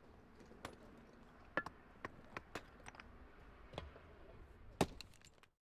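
Irregular sharp knocks and taps, about a dozen unevenly spaced, over a low steady background noise; all sound cuts off suddenly near the end.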